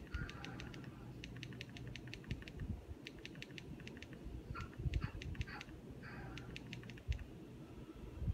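Quick clusters of small plastic clicks from remote-control buttons being pressed over and over, over a low steady hum.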